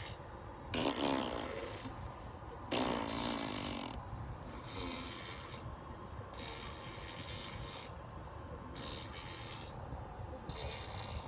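Baby blowing raspberries: sputtering lip buzzes that sound like farts. There are two louder ones in the first four seconds, then several softer ones, over a steady low car-cabin rumble.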